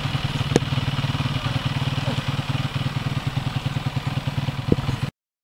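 Off-road trail motorcycle engine idling with an even, steady beat, with a light click and a knock over it; the sound cuts off abruptly near the end.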